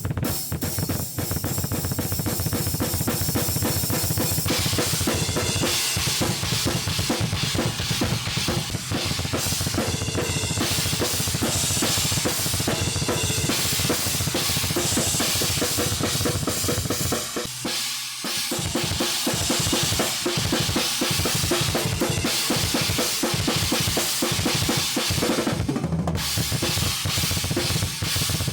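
Drum kit played through a sound check: a continuous groove of bass drum, snare and cymbals, with a short break about seventeen seconds in before the beat resumes.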